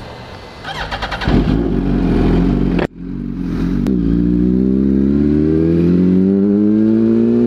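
2007 Yamaha R1's inline-four engine accelerating: the revs build, drop sharply at a gear change about three seconds in, then rise steadily again as the bike pulls in the next gear.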